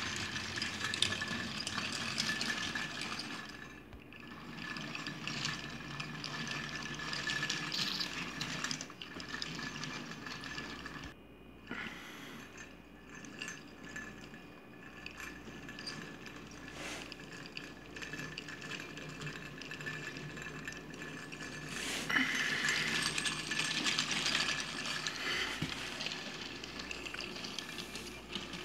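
Small die-cast toy trains rolling and clinking as they are pushed by hand along a hard countertop, the noise rising and falling unevenly.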